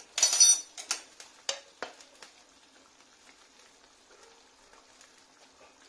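A metal spoon picked up off a granite countertop with a short, loud scraping clatter, followed by a few light taps, over the faint steady simmer of tomato sauce in a frying pan.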